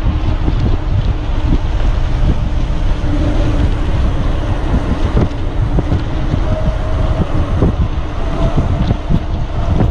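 Wind buffeting the microphone of a mountain bike descending a paved road at speed, with clicks and rattles of the bike running over cracked asphalt.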